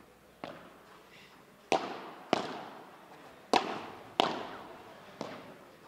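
Padel rally: the ball struck back and forth by padel rackets and bouncing on the court. It makes a soft hit, then five sharp hits less than a second or so apart, each with a short echoing tail.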